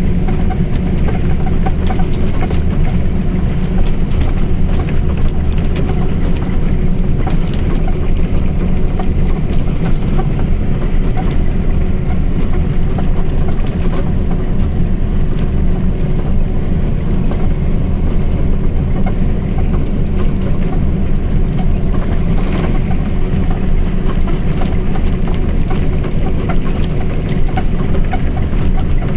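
Mercedes-Benz OF-1722M bus diesel engine running at a steady, even speed with a constant low drone.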